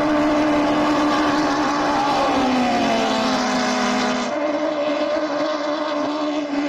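Speedboat engine sound effect: a steady motor drone whose pitch dips for about two seconds in the middle, then comes back up.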